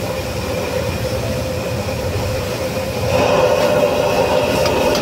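High-flame gas wok burner running steadily under a wok of noodles bubbling in broth, with a ladle stirring. The sound gets louder about three seconds in.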